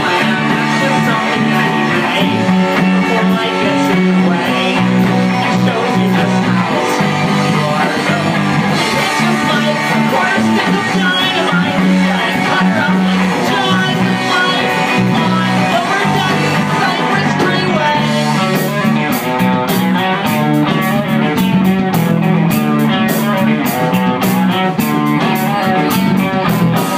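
Live rock trio playing loud: electric guitar, electric bass and a drum kit, with cymbals struck in a steady rhythm over the last several seconds. The song stops abruptly at the end.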